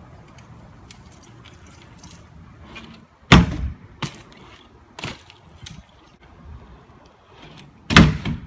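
BMX bike knocking and clattering against the box or the ground: a loud bang about three seconds in, a few lighter knocks after it, and another loud bang near the end.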